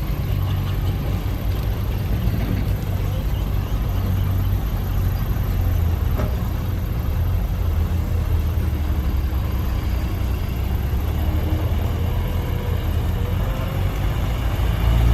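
Heavy diesel engine of a dump truck or bulldozer running steadily, a low rumble that holds an even level.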